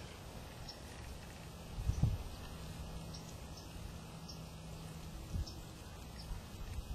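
Faint outdoor background: a low uneven rumble with one dull thump about two seconds in, and short high chirps, one or two a second.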